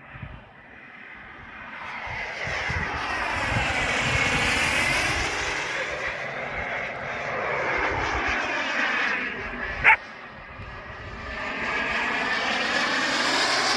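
KingTech turbine of an RC Rafale model jet flying past in repeated passes: a rushing jet whine that swells and fades, with a sweeping whoosh as it goes by. A single sharp click is heard just before ten seconds in.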